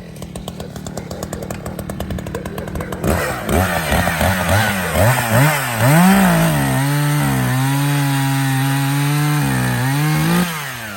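Echo two-stroke chainsaw idling with a rapid even pulse, then revved up and down. It settles at a steady, slightly lower note as it cuts through a log, then drops off as the throttle is released near the end.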